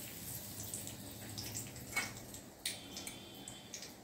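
Bay leaves frying in hot oil in a wok: a low steady sizzle with scattered small pops and crackles.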